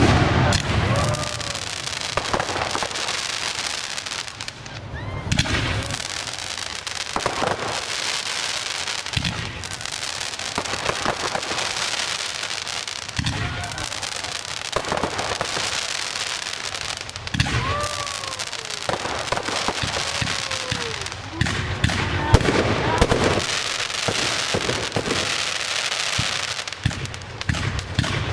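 Professional fireworks display: a steady run of aerial shell bursts going off one after another with crackling, some bangs sharp and loud.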